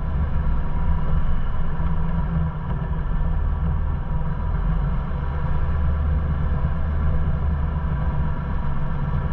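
Ford Bronco running at a slow off-road crawl: a steady low rumble from the engine and drivetrain, picked up by a camera mounted on the hood.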